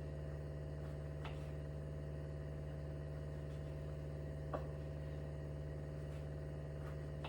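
Steady low electrical hum, with two faint short knocks, one about a second in and one about four and a half seconds in.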